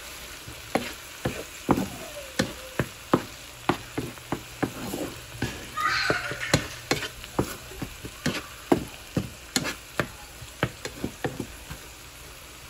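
Grated tomato and turmeric masala sizzling in hot oil in a frying pan while a wooden spatula stirs it, knocking and scraping against the pan about twice a second. The tomatoes are being fried down until cooked. There is a brief higher-pitched scrape about halfway through.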